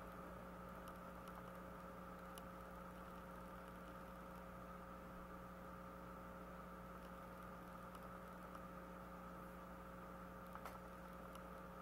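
Near silence: a faint, steady electrical hum and hiss, with a faint click near the end.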